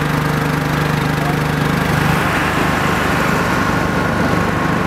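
Steady hum of a small engine or motor running at an even speed, with a strong low drone.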